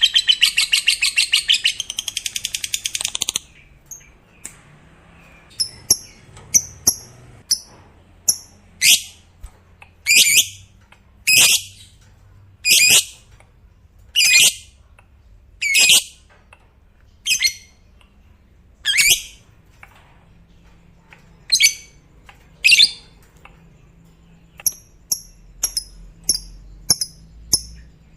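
Lovebird calling: a rapid, high chattering trill ('ngekek') that cuts off about three seconds in, followed by a series of single shrill calls about one every second and a half, turning to quicker short chirps near the end.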